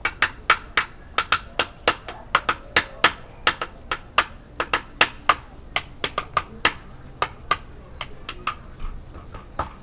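Dog's claws clicking on a hard floor: a long run of sharp, uneven clicks, about three a second.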